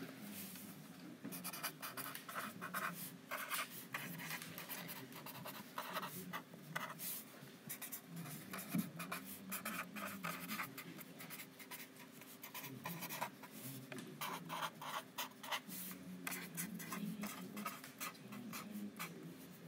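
Pen writing by hand on a sheet of paper: quick scratchy strokes in short runs with brief pauses between words, as a line of text is written out.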